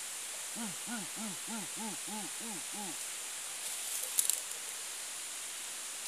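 An animal in the forest canopy giving a run of about eight hooting calls, each note rising and falling in pitch, about three a second. A short crackle of clicks follows about four seconds in, over a steady hiss.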